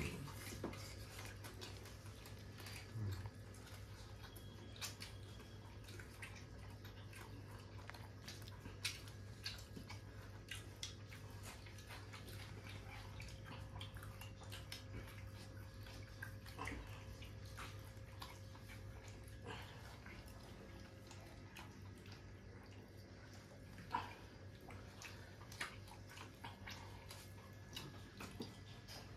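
Quiet sounds of people eating by hand from steel plates: scattered small clicks and taps, over a steady low hum.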